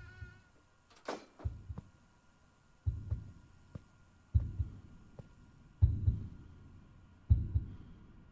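Heartbeat sound effect: a low double thump, lub-dub, about every second and a half, growing louder over the first few beats.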